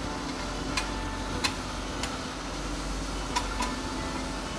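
About five light, irregularly spaced clicks of a metal spatula against a flat-top griddle as food is turned on it, over a steady low hum.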